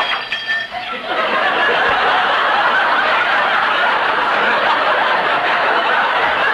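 Studio audience laughing long and loud at Fibber McGee's hall-closet gag. A sharp clink with a brief ringing tail at the start closes the crash of junk from the closet, and the laughter swells about a second in and holds.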